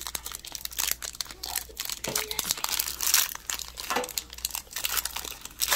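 Foil wrapper of a Pokémon trading card booster pack crinkling and tearing as it is pulled open by hand: a continuous run of irregular crackles.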